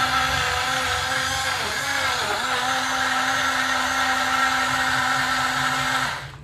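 TOTO Fruit portable rechargeable mini blender's motor running, spinning its blades through fruit pieces and liquid, a steady high hum. Its pitch dips briefly about two seconds in, and it cuts off suddenly near the end.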